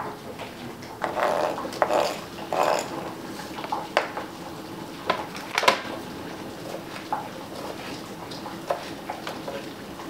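Salad preparation with plastic kitchenware: a couple of seconds of rustling as salad leaves and a plastic salad spinner are handled, then scattered light clicks and knocks of a knife and plastic bowl, with one sharper click a little past halfway.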